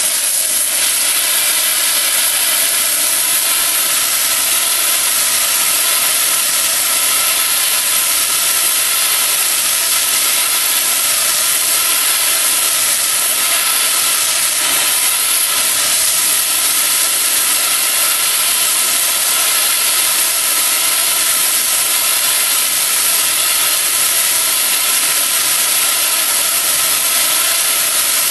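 Oxy-fuel cutting torch hissing steadily as its oxygen jet cuts through thick steel railroad rail.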